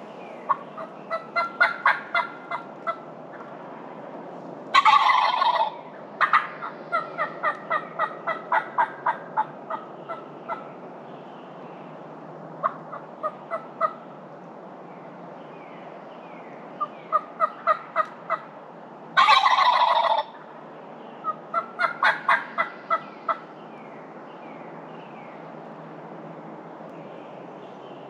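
Wild turkey gobbler gobbling twice, each gobble a loud rattling call about a second long, about 5 s and 19 s in. Between the gobbles come several runs of short, evenly spaced hen-turkey yelps.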